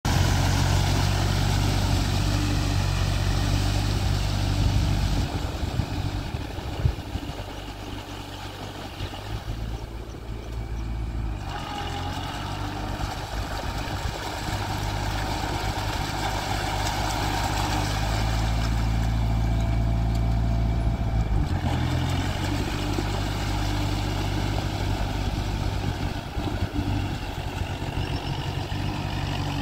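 Kubota MU4501 tractor's four-cylinder diesel engine running steadily under load as it pulls a tillage implement through a flooded rice paddy. The engine sound changes abruptly a few times.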